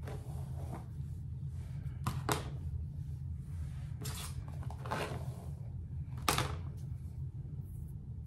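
Handling noises from a headband wig being fitted on the head: a few brief rustles and light knocks over a steady low room hum, the loudest about three-quarters of the way in.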